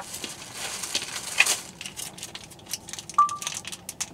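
Takeout food packaging being handled: irregular rustling and crinkling of paper wrappers and a container, with a short high tone about three seconds in.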